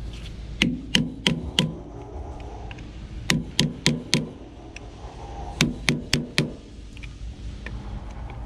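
Hammer striking a steel chisel in three quick bursts of four blows each, every blow leaving a short metallic ring, as the chisel is driven into a part on the forklift wheel hub to work it loose.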